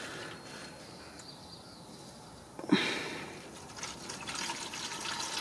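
Old engine oil draining in a thin stream from the open drain hole of a 2005 Kia Sorento's oil pan into a catch pan, a steady pouring trickle. A short knock comes about two and a half seconds in, after which the pouring grows louder.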